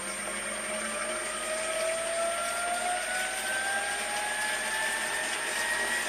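Toyota Prius Gen 3 hybrid transaxle spinning up under electric drive from its MG2 motor, its whine rising steadily in pitch as the speed is increased.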